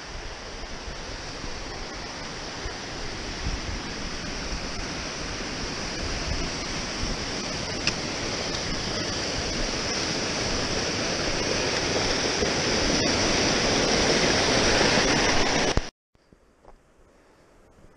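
Rushing water of a mountain stream cascading over rocks, a steady dense hiss growing steadily louder, then cut off abruptly near the end, leaving only a faint hiss.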